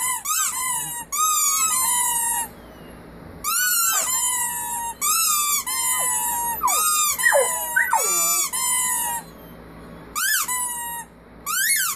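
Rubber squeaky toy squeezed over and over in bursts, each squeak a quick rise and fall in pitch, with short pauses between bursts. About two-thirds of the way through, longer falling glides underneath sound like a puppy howling along.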